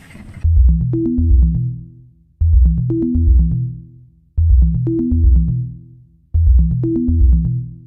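Electronic music: a low synthesizer bass phrase about two seconds long, repeated four times, with light ticking percussion over it. A noisier passage cuts off about half a second in.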